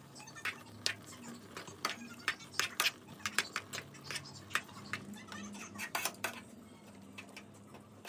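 Steel spoon clinking and scraping against a pan while stirring a pan of cooked Maggi noodles: quick, irregular clicks, thick for about six seconds and then sparser.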